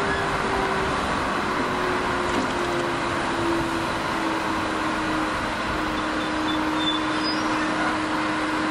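Electric locomotive moving slowly, with a steady rushing noise and a thin whine that slowly falls in pitch over the first few seconds, then holds steady.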